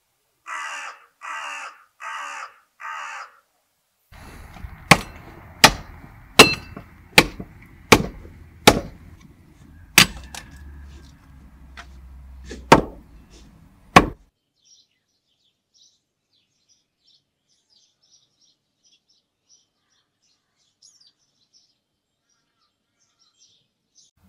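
A bird gives four harsh, crow-like calls in quick succession. Then come about nine sharp, loud knocks or cracks, first roughly every three-quarters of a second and then more spaced out, over a low steady rumble that stops with the last knock.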